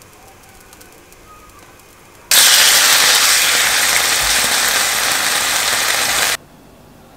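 Teriyaki-marinated chicken breasts sizzling loudly in a hot frying pan. The sizzle starts suddenly about two seconds in and cuts off suddenly about a second before the end.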